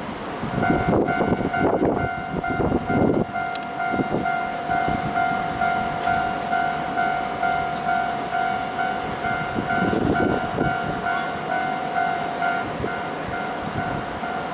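Level-crossing warning bell starts about half a second in and keeps ringing in a steady, even repeating pulse, about two strikes a second. Low gusts of wind rumble on the microphone over the first few seconds and again around ten seconds in.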